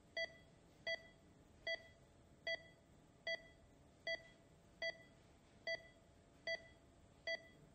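Anaesthetic patient monitor beeping once per heartbeat: about ten short beeps at a steady pulse of roughly 75 a minute, all at the same pitch.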